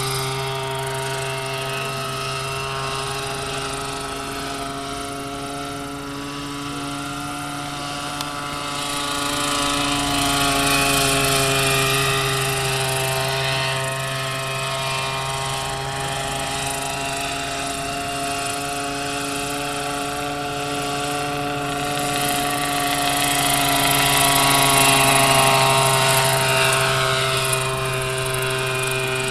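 Large radio-controlled scale model Bell 47G helicopter in flight: a steady engine-and-rotor drone with a pitched whine. It swells louder twice as the model passes closer, about a third of the way in and again near the end.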